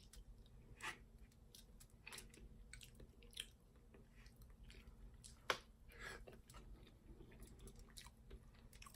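Close-miked chewing of soft food, faint and wet, with scattered lip smacks and mouth clicks; the sharpest smack comes about five and a half seconds in.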